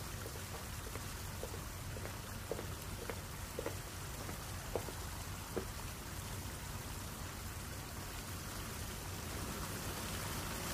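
Steady rain falling, with a few short plinks of drops in the first half.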